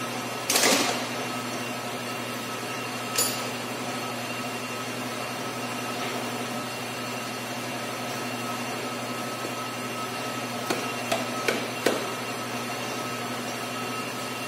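A few short metallic knocks and clinks of hand tools being handled during suspension work, over a steady background hum. The loudest knock comes about half a second in, a single one about three seconds in, and a quick run of four near the end.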